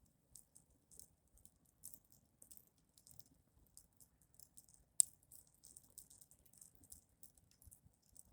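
Burning AUX cord insulation crackling with faint, irregular ticks, and one sharper pop about five seconds in.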